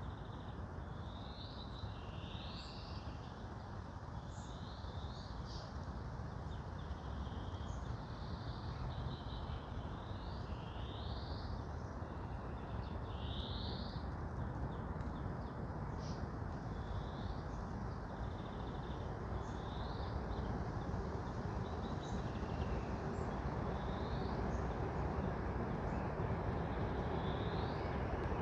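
Forest ambience: small birds chirping repeatedly, short high rising calls every second or two, over a steady low rumble that grows slightly louder toward the end.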